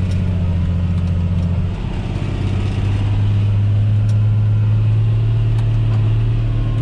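John Deere 8100's six-cylinder diesel engine droning steadily under load while pulling a disc cultivator, heard inside the closed cab. About two seconds in, the engine note shifts and dips briefly, then settles again.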